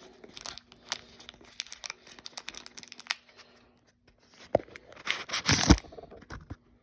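Packaging of a disposable vape crinkling and crackling as the vape is pulled from its box, clear plastic wrapper included. Near the end there is a louder burst of crinkling with a couple of knocks.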